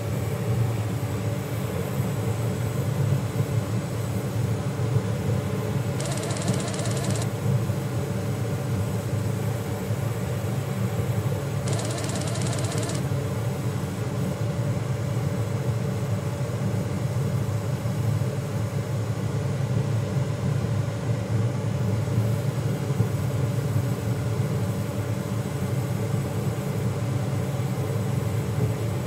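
Steady low hum, with two bursts of about a second each from a simulated cordless drill-driver unscrewing two bolts, the first about six seconds in and the second about six seconds later.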